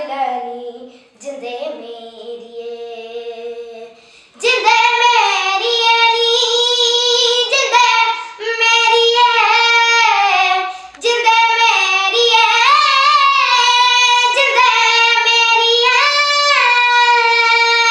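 A young girl singing a Punjabi song solo with no instruments. She starts softly, then sings in full voice from about four seconds in, holding long notes.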